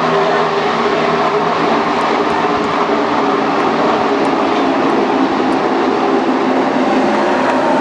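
A field of NASCAR Cup stock cars with pushrod V8 engines running around the oval, a loud steady drone of many engines overlapping.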